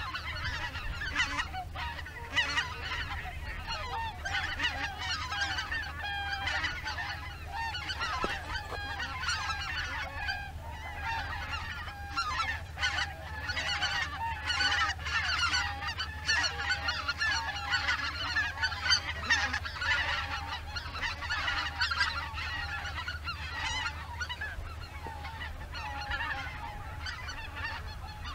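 A flock of greater white-fronted geese calling in flight: many overlapping honks and yelps run on without a break.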